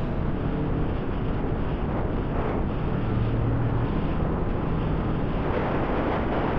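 Steady road and wind noise from a moving vehicle, an even rushing with a faint low hum and no music.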